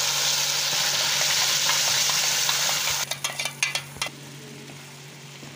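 Blended papaya paste poured into hot ghee in a nonstick pan, sizzling loudly as the wet paste hits the fat. After about three seconds it breaks into a short burst of crackles, then settles to a quieter sizzle.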